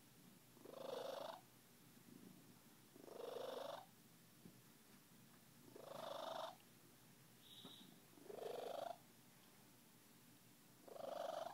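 Siamese cat purring in surges, five in all, about every two and a half seconds, fainter in between.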